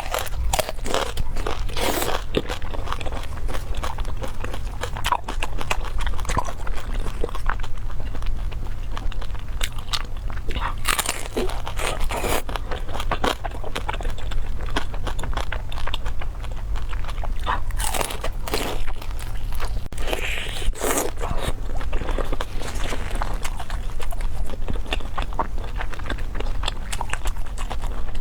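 Close-miked biting and chewing of crispy pork belly: irregular crisp crackling crunches of the crackling skin, over a steady low hum.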